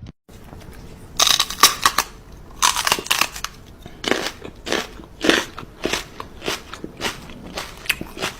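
Crisp crunching, in a few dense clusters over the first three seconds, then single crunches about twice a second.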